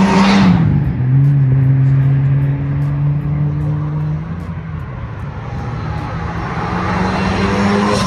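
Nissan Skyline R34's engine as it drives close past: its pitch drops as it goes by, holds steady as it pulls away and fades about four seconds in. Near the end a second car, a Mitsubishi Eclipse, comes up with its engine note rising in pitch.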